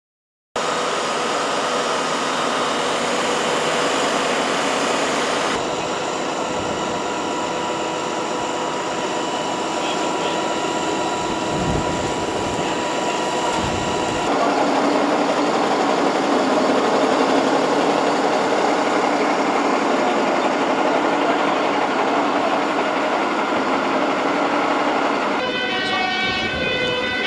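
Fire engines running at the scene, a steady drone with a high whine held in it. Near the end an emergency vehicle's two-tone siren starts up, alternating between two pitches.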